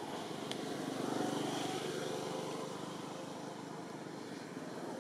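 Steady outdoor background noise with a distant engine that swells briefly about a second in and then fades, and a single small click near the start.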